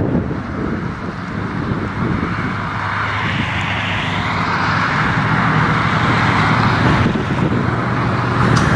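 Early-1960s Chevrolet pickup truck driving slowly past, its engine running at low speed under a steady hiss of road and tyre noise that swells as it comes closer.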